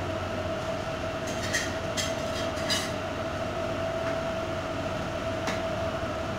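Steady background machine hum with one constant mid-pitched tone, broken by a few light clicks.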